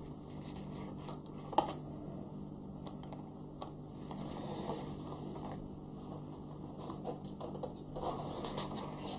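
Hobby knife point scratching and picking at a thin laser-cut wooden deck sheet, working loose the last bits still holding the cut-out pieces in place. It comes as irregular light scratches and small ticks, busier near the end.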